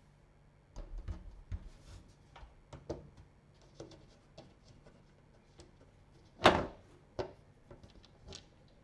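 Hands handling PC parts during assembly: a run of light clicks and knocks from parts and tools being set down and fitted, with one louder knock about six and a half seconds in.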